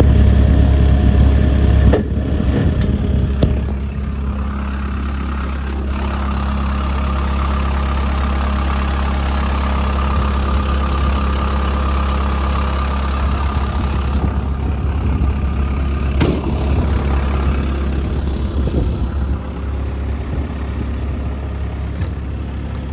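Komatsu PC160LC-7 excavator's diesel engine idling steadily, a little quieter from about two seconds in, with a few short clicks.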